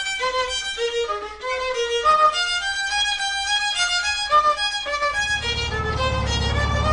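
Solo violin playing a quick melody of short bowed notes. A low steady bass layer joins underneath about five seconds in.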